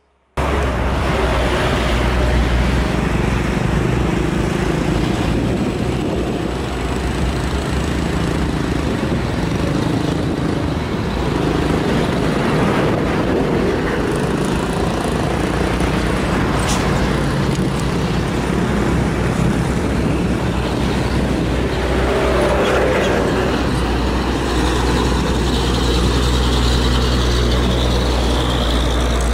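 Heavy diesel trucks climbing a steep grade, their engines working under load, with passing cars and motorbikes in steady roadside traffic.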